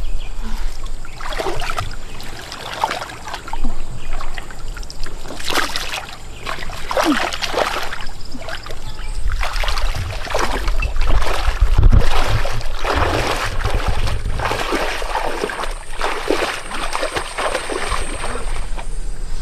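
Water splashing and sloshing in irregular surges, as when someone wades or moves through water by hand, with a low rumble in the middle.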